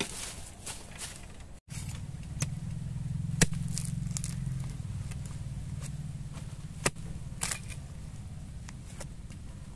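A heavy blade chopping into soil and the base of a young bamboo shoot: several sharp knocks, the loudest about three and a half seconds in, over a low steady hum that starts about two seconds in.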